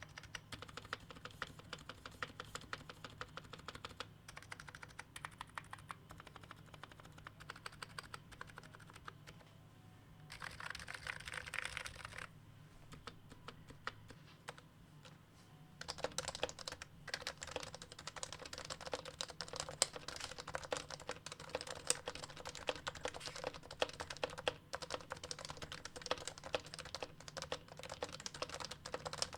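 Typing on a Topre electrostatic-capacitive keyboard: a steady run of soft keystrokes with a short dense flurry about ten seconds in, then louder, faster typing from about sixteen seconds in.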